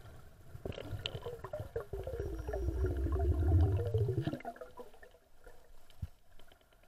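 Muffled underwater gurgling, as picked up by a camera beneath the sea surface. A dense, pulsing, wavering rumble builds about two seconds in and cuts off abruptly just after four seconds. A single knock follows near the end.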